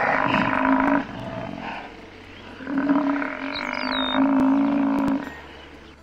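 Water buffalo calling twice in long, low calls, the second lasting about two and a half seconds.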